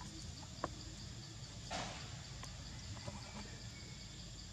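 Insects chirping in a steady, evenly pulsing high-pitched chorus, with a brief rustle about two seconds in and a couple of small clicks.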